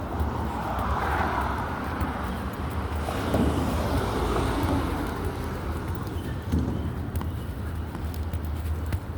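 Steady low vehicle rumble with road noise, growing louder for a couple of seconds in the middle.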